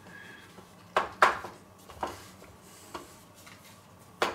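Several irregular sharp clinks and knocks of a stainless steel roasting pan as hands press and shape pizza dough balls in it.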